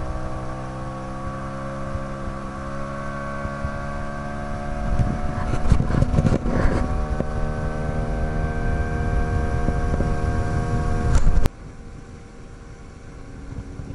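Mikatsu 9.9 hp outboard motor running under way, a steady hum whose pitch creeps slowly upward. A rush of noise swells over it between about five and seven seconds in. The motor sound cuts off abruptly near the end, leaving a much quieter background.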